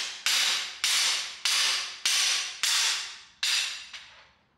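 A hammer striking the steel driver bar of a cam bearing tool, about six ringing metallic blows roughly 0.6 s apart, each fading before the next. The blows are knocking a worn camshaft bearing out of a GM LS V8 engine block.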